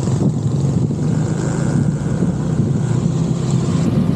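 Small 125cc motorbike engine running steadily at cruising speed, with wind rushing over the mounted microphone.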